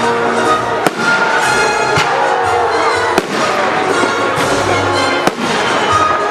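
Fireworks salute bursting overhead, several sharp bangs a second or so apart, with music playing alongside.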